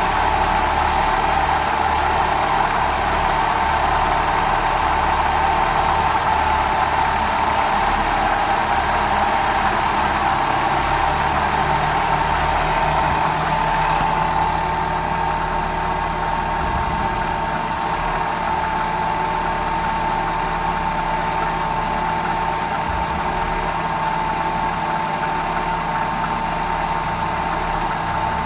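Citroën DS3 THP's 1.6-litre turbocharged petrol engine idling steadily, with a constant whining tone running over the idle: the strange noise the owner is recording. The sound eases slightly about halfway through.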